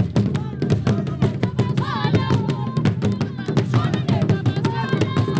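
Traditional Zulu cowhide drums beaten in a fast, steady rhythm for a dance, with high gliding calls over the drumming about two seconds in and again near the end.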